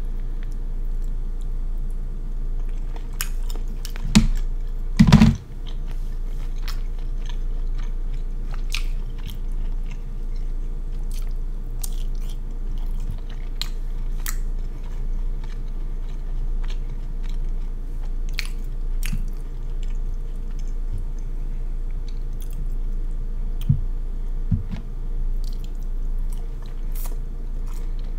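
Close-miked mukbang eating of seafood: wet chewing, biting and mouth smacking with many small clicks. There are two loud thumps about four and five seconds in, over a faint steady hum.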